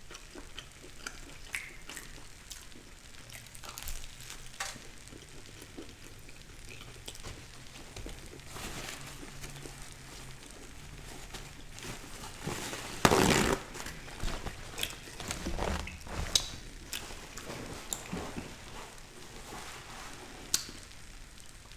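Close-miked eating of pepperoni pizza: quiet chewing with scattered small clicks and mouth sounds, and a few louder handling rustles, the loudest about two-thirds of the way through.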